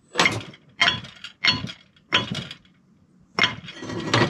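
Heavy steel excavator bucket link clanking against a new steel pin, about six metallic knocks with a pause past the middle, as the pin is tried in the link's bore. The pin will not go in: its stock measures 1.435 in. instead of 1.375 in.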